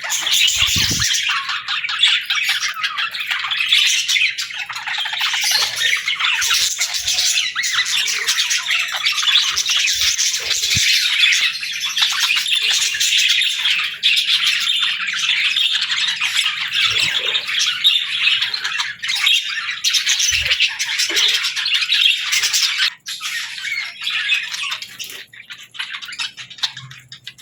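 Budgerigars chattering, a dense, unbroken mix of chirps and squawks that becomes patchier after about 23 seconds.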